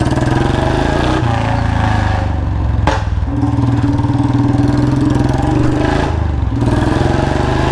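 Royal Enfield Bullet Standard 350 single-cylinder engine thumping loudly through an aftermarket pipe and long-bottle silencer, its note shifting in steps and dipping briefly about three seconds in and again past six seconds. The owner says a slight leak at the front of the exhaust pipe keeps it from giving its proper sound.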